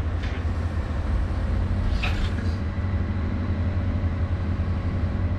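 Excavator diesel engine running steadily, a low rumble heard from inside the operator's cab. A couple of short sharp knocks sound over it, the clearest about two seconds in.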